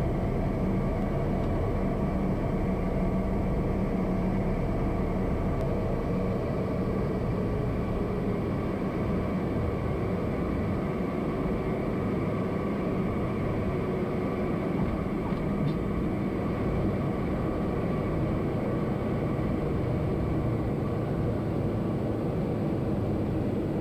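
Piper Meridian's Pratt & Whitney PT6A turboprop engine and propeller running steadily, heard from inside the cockpit through landing and rollout: an even hum with several held tones over a noisy rush.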